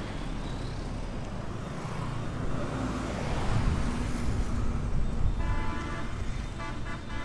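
Road traffic passing close by on a highway: motorbikes and other vehicles running by, swelling as a vehicle passes about halfway through.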